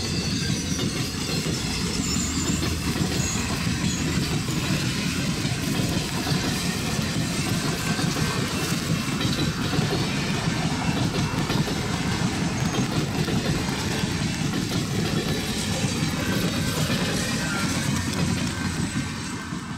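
Streamlined passenger coaches of a train rolling past, a steady rumble and clatter of steel wheels on the rails, which fades out at the very end.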